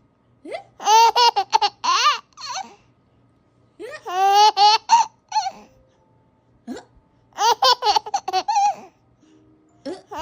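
A baby laughing in three bouts of quick, high-pitched pulses, with short pauses between them.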